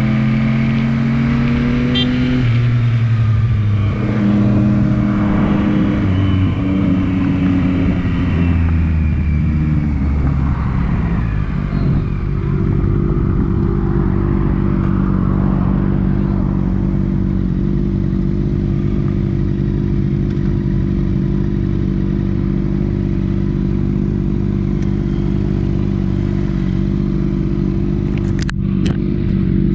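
Motorcycle engine with its pitch rising and falling over the first dozen seconds, then running at a steady, unchanging note for the rest. A brief sharp click comes near the end.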